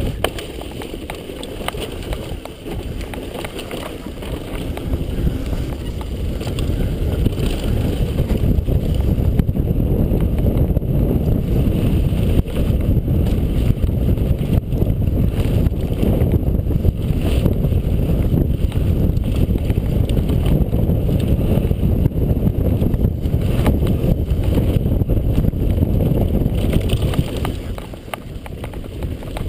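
Wind buffeting the microphone of a helmet camera on a fast mountain-bike descent, mixed with the knocks and rattle of the bike and its tyres on a rough dirt trail. The noise grows louder about six seconds in and eases briefly near the end.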